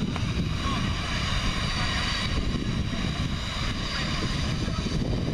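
Wind buffeting the microphone: a steady, uneven low rumble over a fainter high hiss.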